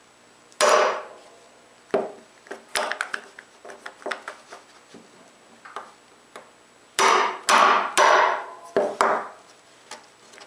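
Claw hammer striking a steel corner chisel, chopping the rounded corner of a routed recess in a plywood bench top square. Sharp blows with a short ring: a few loud strikes early, lighter taps between, then a quick run of loud strikes about seven seconds in.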